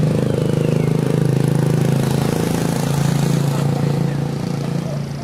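A small engine running steadily, easing off about four seconds in.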